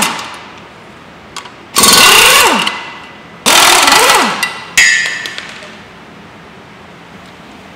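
Impact wrench hammering an engine's flywheel bolts loose, in two bursts of about a second each, its pitch rising then falling in each. Shortly after comes a sharp metallic clank with a brief ring.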